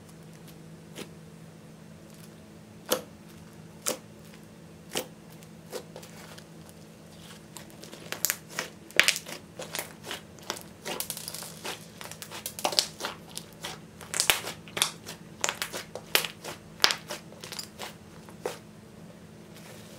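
Thick clay-mixed slime being kneaded and stretched by hand, giving sharp sticky pops and crackles: a few scattered clicks at first, then a dense crackling run from about eight seconds in that thins out near the end.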